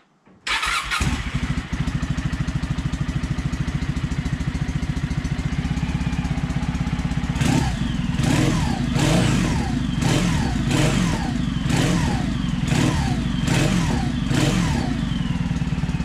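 Kawasaki W800's air-cooled parallel-twin engine starting about half a second in, idling through reverse-cone megaphone exhausts with the baffles fitted, then from about halfway being blipped repeatedly, the revs rising and falling back with each blip.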